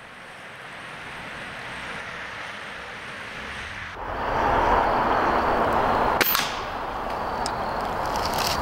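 A single shot from a Stoeger S4000-E .22 break-barrel pellet rifle, which has a noise suppressor built into its barrel: one sharp crack about six seconds in. Behind it is a steady rushing background that grows louder about four seconds in.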